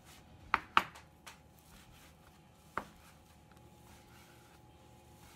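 Kitchen knife cutting fried tofu on a plastic cutting board: a few sharp knocks of the blade on the board, two close together about half a second in and one more near three seconds, with a faint steady hum underneath.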